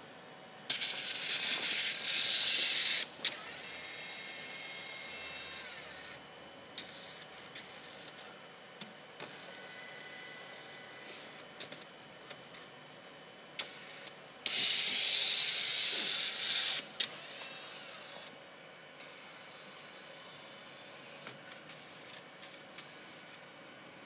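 Tape-handling shuttle of an HP StorageWorks 1/8 tape autoloader moving along its track under motor drive. It makes two loud whirring runs of about two and a half seconds each, near the start and about midway, with quieter motor whirring and scattered mechanical clicks between them.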